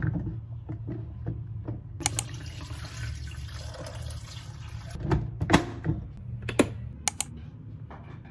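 Water poured from an insulated bottle into a plastic electric kettle for about three seconds, starting about two seconds in. Light knocks come before the pour, and a few sharp plastic clicks and knocks follow it as the kettle and lid are handled.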